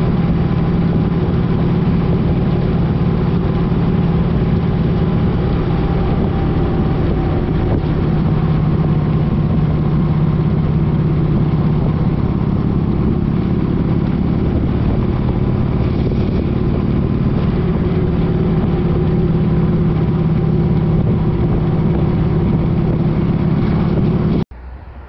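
Harley-Davidson motorcycle's V-twin engine running at a steady cruise, its pitch holding level, under a constant rush of wind noise. The sound cuts off abruptly near the end.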